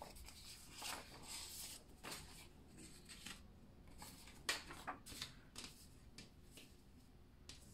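Paper prop money bills being handled: soft, irregular rustles and flicks of paper as the bills are fanned through and laid down on the table, with a sharper flick about four and a half seconds in.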